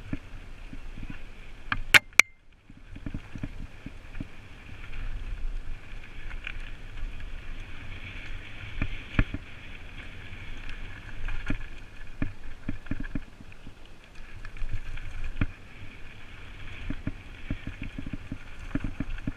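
Mountain bike descending a dirt and gravel trail: a steady rumble of tyres and wind on the helmet-mounted microphone, with frequent knocks and rattles of the bike over bumps. Two sharp clicks about two seconds in.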